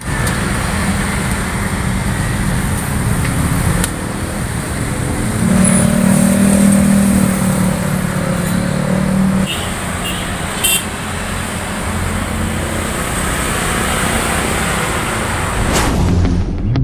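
Roadside traffic noise, a steady rumble of passing cars and motorbikes, with one engine hum growing louder about five seconds in and dropping back about four seconds later. A few light clicks sound near the middle.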